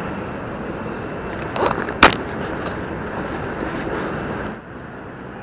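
Steady street traffic noise, with a single sharp click or knock about two seconds in; the noise drops a little near the end.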